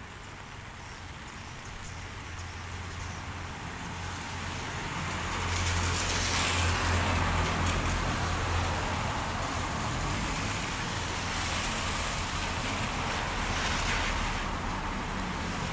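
Road traffic on wet pavement, a hiss of tyres with a low engine rumble, growing louder about five seconds in and staying up, over the light patter of drizzle.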